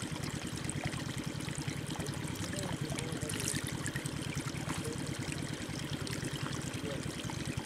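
Shallow muddy water flowing and trickling steadily along a narrow earthen ditch.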